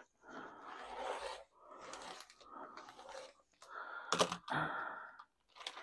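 Scraping and rustling from hands handling plastic rotary cutters and an acrylic ruler on a cutting mat while the dull cutter is swapped for another, with a few sharp clicks about four seconds in and near the end.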